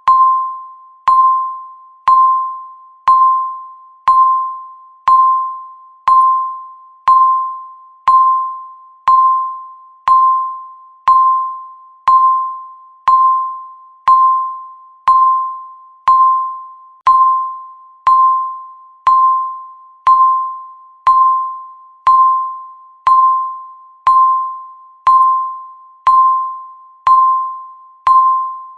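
Countdown timer's electronic ticking, one tick a second: each tick is a sharp, bell-like ping that rings briefly and fades before the next.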